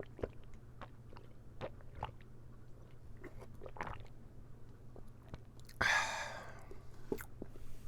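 Close-miked chewing of a soft egg tart: scattered short, moist mouth clicks. About six seconds in there is one brief, louder rushing sound.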